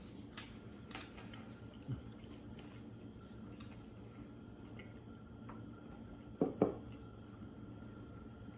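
Quiet handling and eating noises at a table over a steady low hum: a few faint clicks, then two quick knocks close together about six and a half seconds in.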